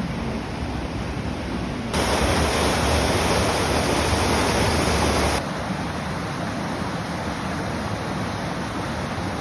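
Steady rush of a waterfall, Aira Force, pouring. It gets abruptly louder for about three seconds, starting about two seconds in, then drops back just as suddenly.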